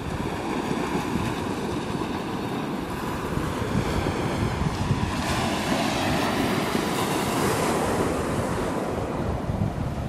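Small sea waves breaking and washing up a pebble beach, the surf swelling as a wave breaks about five seconds in and easing off near the end. A low, uneven wind rumble on the microphone sits under it.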